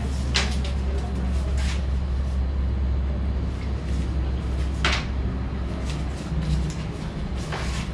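A steady low hum with four brief rustling crackles, from a small puppy being handled on a newspaper-covered table.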